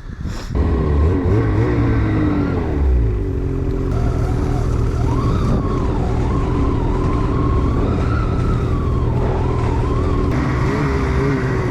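Ski-Doo snowmobile engine running at low, wavering revs as the sled descends a steep slope, held back with engine braking and the brake. It comes in about half a second in and stays steady.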